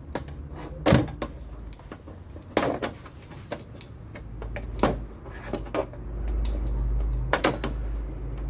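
Sharp plastic clicks and knocks, several spread out, as a TV LCD panel's plastic frame is pressed and pried off its snap-fit clips by hand, with a low rumble through the second half.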